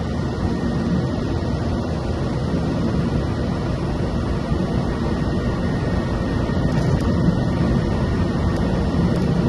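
Cessna 208 Caravan's PT6A turboprop engine and propeller running at low power during the landing rollout, heard inside the cockpit as a steady drone with a faint high whine.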